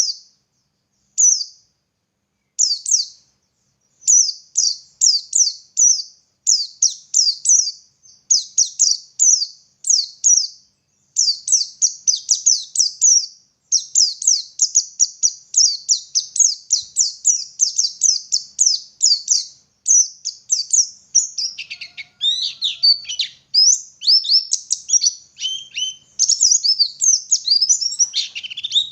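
White-eye (pleci) singing: fast runs of high, thin, down-slurred notes. A few short phrases come first, then a nearly continuous song from about four seconds in, with some lower notes mixed in near the end.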